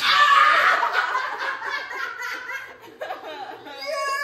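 People bursting into excited laughter and cheering, starting abruptly with a loud yell, then a high-pitched held squeal near the end.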